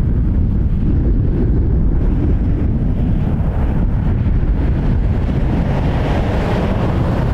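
Heavy wind buffeting the microphone in a steady low rumble, with the engine noise of the approaching Boeing 787-9 Dreamliner, a broad whoosh, swelling louder over the last couple of seconds.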